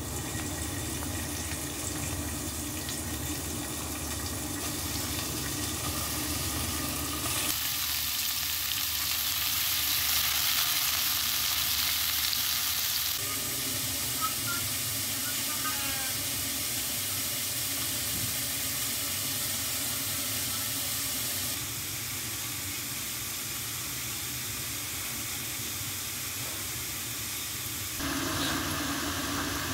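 Food sizzling and frying in a pan, a steady hiss that shifts in level and tone several times, as between separate clips.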